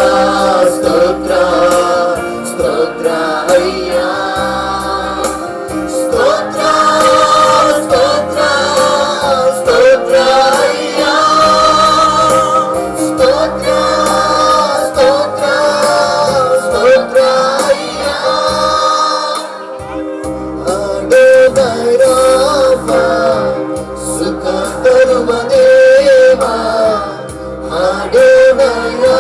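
Christian worship music: a song with group singing over a band with a beat.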